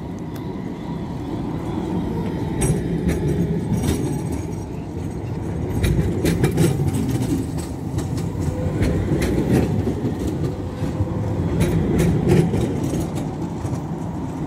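Electric low-floor tram passing close by: a low running rumble that swells and eases, with repeated sharp clicks as its wheels cross rail joints and track crossings.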